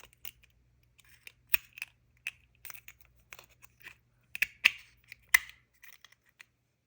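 Irregular clicks and light taps as a Daiwa Basara fishing reel and its small removable parts are handled, with three louder clicks between about four and a half and five and a half seconds in.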